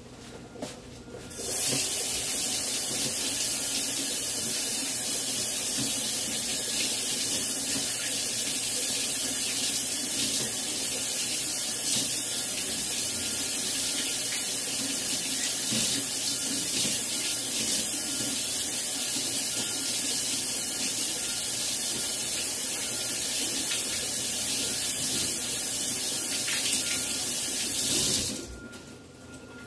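Kitchen tap running steadily into a sink, turned on about a second and a half in and shut off shortly before the end.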